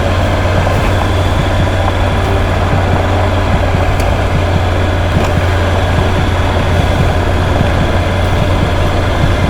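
Motorcycle engine running steadily under way, with a constant low hum and steady wind rush over the microphone.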